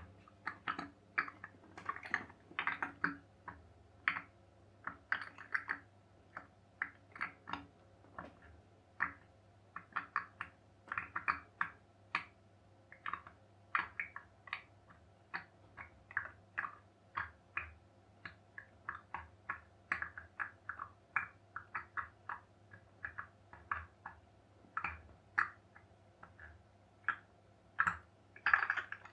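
Pop-pop boat's aluminium-tube steam boiler, heated by a tea light, making irregular clicking pops, a few a second with short gaps: funny noises that sound like a leak, though the engine keeps running.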